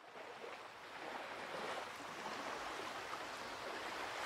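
Ocean surf: a steady rush of waves that fades in from silence over about the first second.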